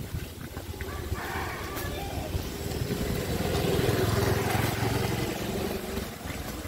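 Motor scooter riding past close by, its engine growing louder to a peak about four seconds in, then fading as it moves off.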